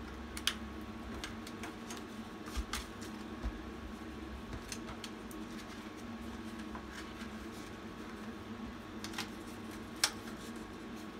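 Clear plastic zippered cash-envelope pouches and paper bills being handled: scattered short crinkles and clicks, the sharpest about half a second in and near the end, over a steady low hum.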